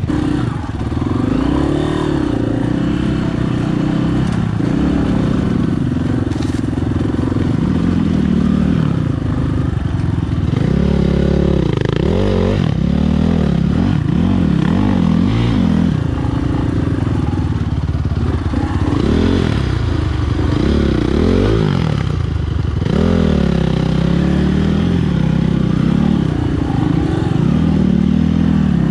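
Dirt bike engine revving up and down again and again in short throttle bursts, the pitch rising and falling as the bike is worked over a rocky trail section.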